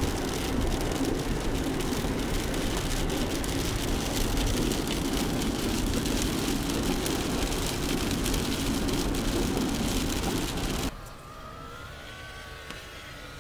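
Steady road and tyre noise inside a Subaru driving on a wet highway, with a low engine hum. About eleven seconds in it cuts off to a much quieter cabin, and a faint whine from a power window motor follows near the end.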